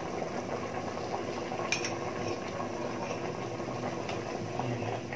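Pork-bone stew simmering in a stainless steel pot, a steady bubbling, with one light click about two seconds in.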